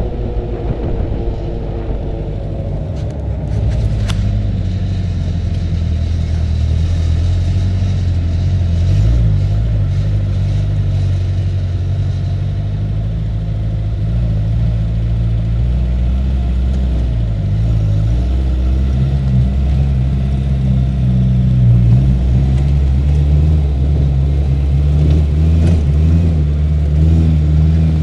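Quaddragon off-road buggy's engine running under load, heard from on board, its note stepping up and down with the throttle over a steady low rumble.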